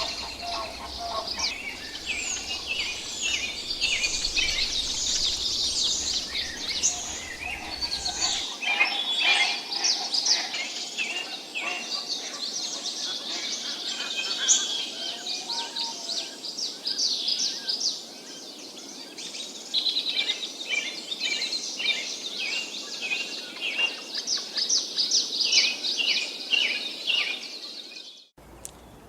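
A dense chorus of many songbirds chirping and trilling at once over a steady background hiss. The chorus cuts off abruptly near the end.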